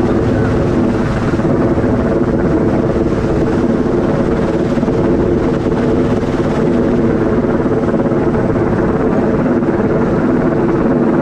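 Helicopter hovering overhead: a loud, steady drone of rotor and engine that holds the same pitch throughout.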